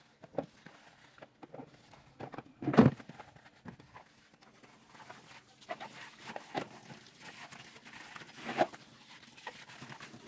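Dishes being washed by hand in a stainless steel sink: plastic bowls knocking against the sink and a pan, with a loud knock about three seconds in. From about halfway on, the tap runs as the bowls are rinsed, with more knocks as they are handled.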